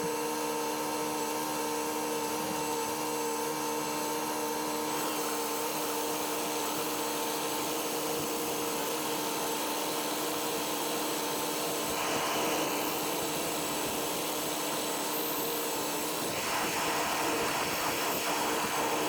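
Tractor running steadily while round baling hay: a continuous mechanical hum and whine at several fixed pitches. It grows rougher and noisier about twelve seconds in and again near the end.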